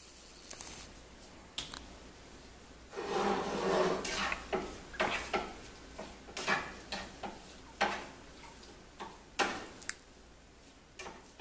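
Metal tongs clicking and scraping against a frying pan as chicken pieces are turned, over a low sizzle of the chicken frying. The handling starts about three seconds in and goes on in irregular clacks and scrapes.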